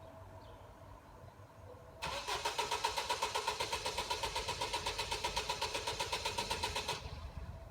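Car starter motor cranking the engine for about five seconds, a fast rhythmic whirring of about eight pulses a second, then stopping without the engine catching: a car that won't start.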